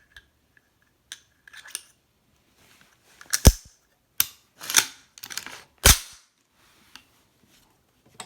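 Pistol being handled to chamber a laser bore-sighter cartridge: a run of light clicks, then several sharp metallic clacks as the slide is worked. The loudest clacks come about three and a half and six seconds in.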